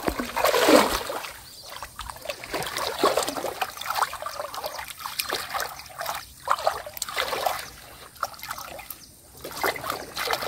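Shallow water splashing and trickling as a collapsible mesh fish trap is pushed into the shallows and set among water lilies, with wading steps in the water. The loudest splash comes about half a second to a second in, then smaller irregular splashes and trickles.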